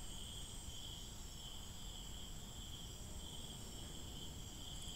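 Insects trilling steadily at a high pitch, with a low background rumble underneath.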